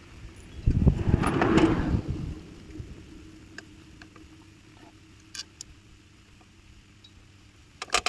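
Metal parts of a motorcycle exhaust being handled and fitted: a brief loud rattle and scrape about a second in, then a few light clicks and a sharp click near the end.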